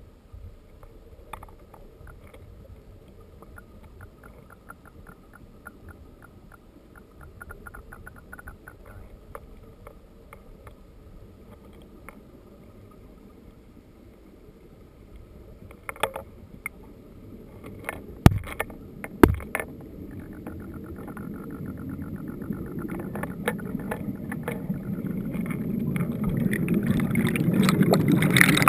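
Creek water heard underwater: a low, muffled rush with faint ticking, growing steadily louder over the last third as the water turns to churning, bubbly flow over cobbles. About two-thirds through come two sharp knocks a second apart.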